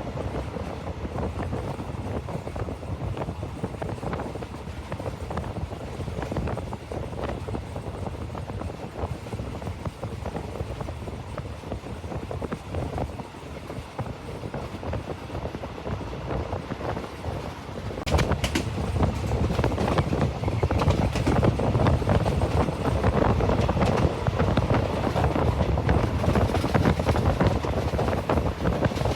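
A train running on the rails: a steady rumble and rattle of the cars. About two-thirds of the way through it grows louder, with a quick run of clicks.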